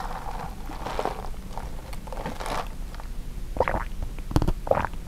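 Close-up handling noises of a bagel breakfast sandwich: soft rustling with a few short crinkles and clicks, sharpest in the second half.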